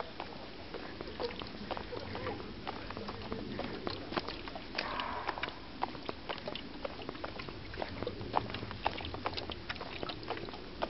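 Red muntjac (barking deer) giving a dog-like bark from the trees, heard plainly around the middle, over the frequent short clicks of footsteps on stone steps.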